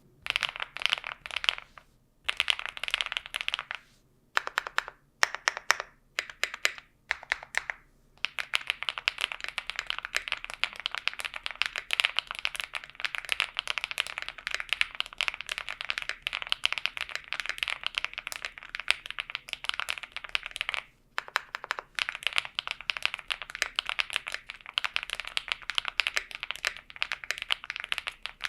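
Typing on a CIDOO V75 Plus mechanical keyboard fitted with Epomaker Zebra switches and DROP DCX keycaps: a fast, steady stream of key clacks. There are brief pauses, and a stretch of slower, separate keystrokes in the first several seconds.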